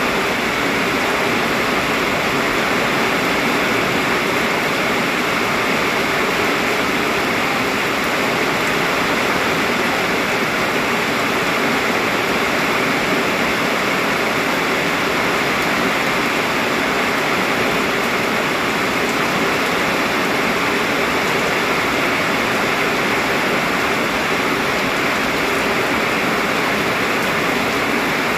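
Heavy rain pouring down, a dense steady hiss that doesn't let up.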